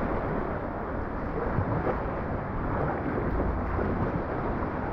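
Steady rumbling wind noise on the microphone mixed with sea water sloshing around a kayak.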